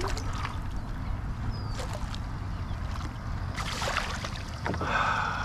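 A hooked redfish thrashing and splashing at the water's surface beside a kayak, over a steady low background noise; the loudest splash comes about three and a half to four seconds in.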